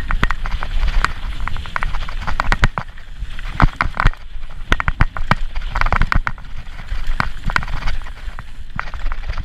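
Mountain bike clattering fast over rocky, rooty singletrack: a dense, irregular run of sharp knocks and rattles from tyres, chain and frame striking rocks. Wind buffets the microphone underneath with a steady low rumble.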